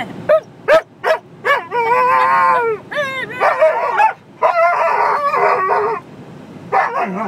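Siberian huskies howling: a few short yips in the first second and a half, then long, wavering howls.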